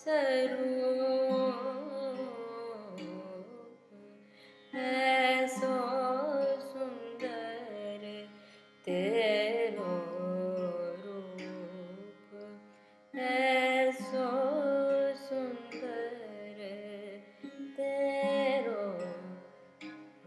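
Music in raga Rageshree: a plucked, sitar-like string instrument playing gliding phrases, each begun by a fresh pluck about every four seconds and fading away before the next.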